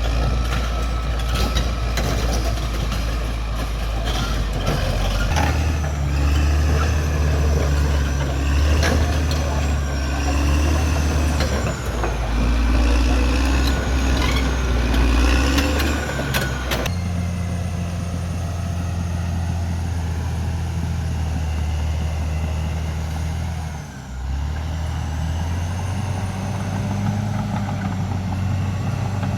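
CAT D6R XL bulldozer's diesel engine running under load, its pitch rising and falling as the throttle changes. Over the first half it is overlaid by frequent sharp knocks and clanks.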